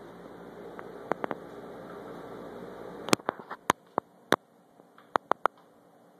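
Scattered sharp clicks and taps: three close together about a second in, a run of them with the loudest at about three seconds, and three quick ones near the end. They sit over a low steady hum that drops away at the loudest click.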